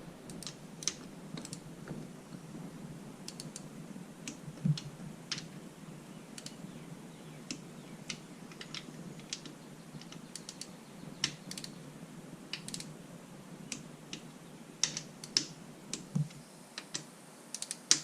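Irregular light clicks and taps of metal hand tools and small parts being handled on the engine cases, with a few louder knocks near the end.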